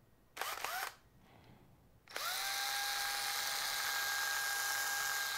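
Cordless drill: a couple of short trigger bursts, the motor whining up in pitch each time, then held on for about three seconds at a steady whine.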